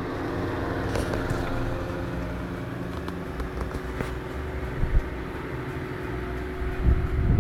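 Late-1920s Verity Orbit electric desk fan, freshly restored and rewired, running with a steady motor hum and the whoosh of its blades. A low rumble of its airflow on the microphone rises near the end as the head swings round.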